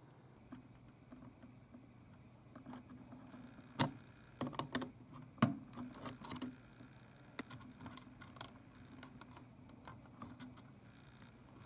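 Irregular sharp clicks and taps of small hard parts and hand tools being handled during amplifier repair work, bunched in the middle with the loudest knocks a few seconds in, over a low steady hum.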